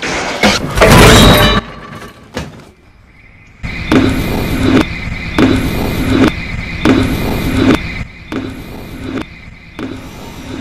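Sci-fi elevator machinery jolting into motion with a loud burst of grinding and sparking. After a short lull, a brief snippet of mechanical noise with a high steady tone is looped over and over, repeating about every three-quarters of a second.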